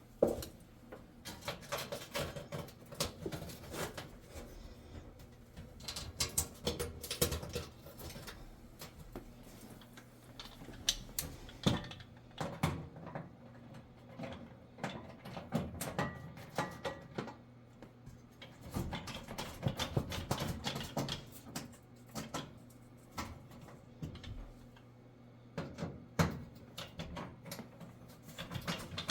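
Irregular clicks, taps and light scrapes of screws being put in and metal oven trays and covers being handled and fitted into place.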